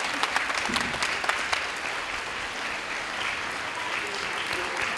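Audience applauding, the clapping densest in the first second and a half, then continuing more evenly.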